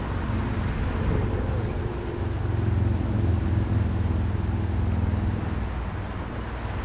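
Fast-flowing river rushing, with a low rumble that swells for a few seconds in the middle.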